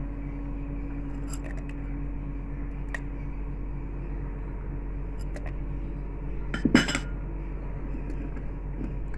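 Whole spices, black peppercorns and cloves, being dropped into a blender jar: scattered light clicks and clinks, with one louder clatter about seven seconds in.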